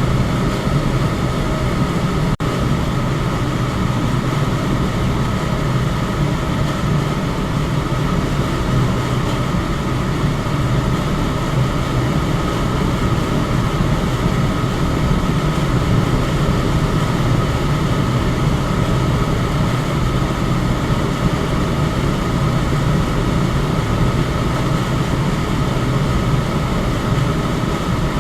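Electric fan running steadily: an even rushing of air with a low motor hum and a faint steady tone above it, broken by a momentary dropout about two seconds in.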